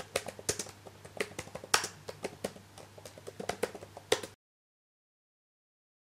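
Fast typing on a computer keyboard: a quick, uneven run of key clicks over a faint low hum, cutting off abruptly about four seconds in.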